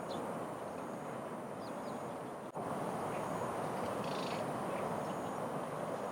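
Steady outdoor background rumble with a few faint, short high bird chirps, a small cluster of them about four seconds in; the sound breaks briefly about two and a half seconds in.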